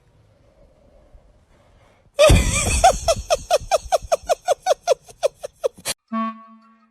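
A loud run of rapid, repeated vocal pulses, about five a second, each dipping in pitch. It starts a couple of seconds in and stops abruptly after about four seconds. A short musical tone follows near the end.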